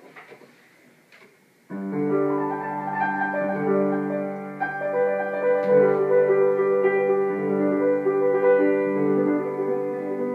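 Grand piano being played, starting suddenly a little under two seconds in, with held notes ringing on and overlapping one another.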